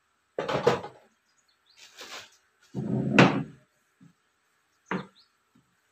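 Handling noises from a spray gun in its plastic bag: several short bursts of rustling plastic and knocks, the loudest about three seconds in.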